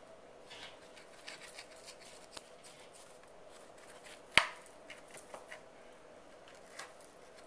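Knife cutting through baked lemon bars with a crumbly oat-streusel crust, a run of small scraping, crunching cuts, with one sharp knock about four seconds in.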